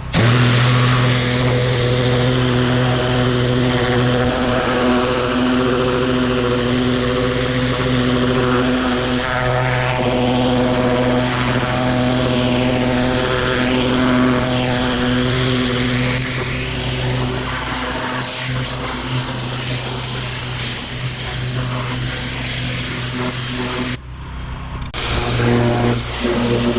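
Pressure washer engine running steadily under the hiss of high-pressure water spraying from a rotary surface cleaner on stone paving. The sound cuts out briefly near the end, then starts again.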